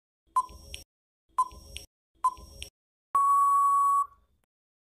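Quiz countdown-timer sound effect: three short ticks about a second apart, then a steady beep lasting nearly a second as the time runs out.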